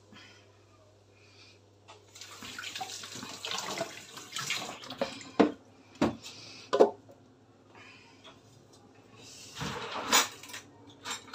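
Kitchen tap running in short spells, with a few sharp clanks of kitchenware in the sink.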